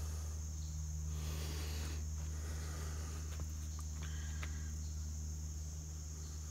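Steady high insect chorus, like crickets, over a low steady hum, with a brief rustling rush about a second in and a few faint chirps a little after the middle.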